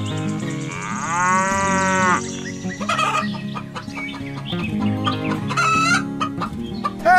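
Farmyard animal sound effects: hens clucking, a rooster crowing and a cow mooing, over steady background music.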